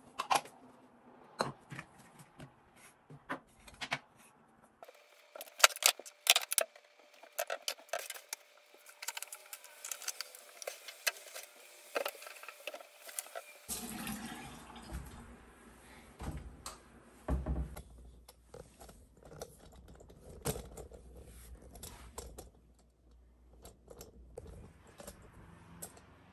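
Glass jars, bottles and plastic containers clinking and knocking as they are picked up and set down on a granite bathroom counter. About halfway through, a tap starts running and water splashes into the sink as a sponge is rinsed under it, with more knocks of things being handled.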